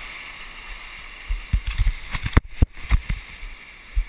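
Shallow surf washing and hissing close to the microphone, then a run of low thumps and knocks from about a second in to three seconds in.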